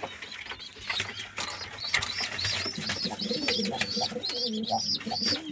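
Turkish tumbler pigeons cooing, with low repeated coos and short high, thin calls over them, getting busier about two seconds in.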